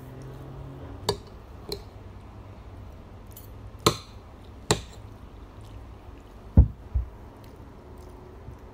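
Metal spoon and fork clinking against a plate as noodles are scooped up: four separate sharp clinks, then two dull thumps in quick succession near the end.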